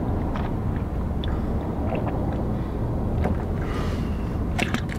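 Steady low rumble of a car interior, with a few faint clicks and handling noise from a plastic gallon water jug being tipped up and drunk from.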